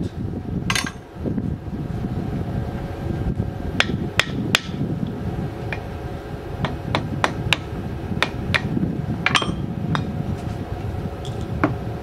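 Hammer blows on a steel drift set against the pulley hub of a seized 1969 Cadillac Eldorado air-conditioning compressor held in a vise, driving to free the pulley. About a dozen sharp metallic strikes at uneven intervals, several in quick runs of two or three, over a steady low drone.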